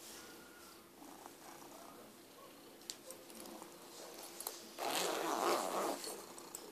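Domestic cat purring steadily, with a loud scratchy burst of backpack handling near the zipper lasting about a second, roughly five seconds in.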